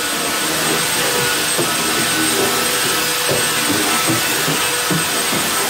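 Power floor sander running steadily on the wooden floors upstairs, a loud continuous drone with a faint hum in it, and a few footfalls on the wooden stairs.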